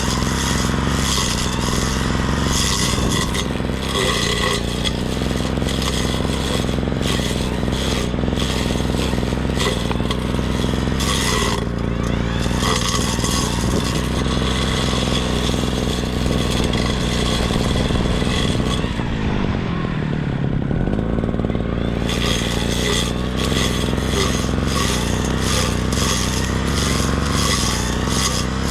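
Brush cutter's small engine running steadily under load, with a rapid clatter and scrape of the cutting head through grass. About twenty seconds in the cutting noise stops for a couple of seconds and the engine pitch falls, then cutting resumes.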